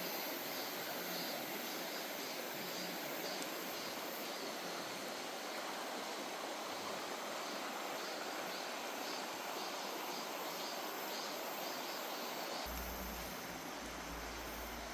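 Mountain valley stream rushing over rocks, a steady water noise. A low rumble joins near the end.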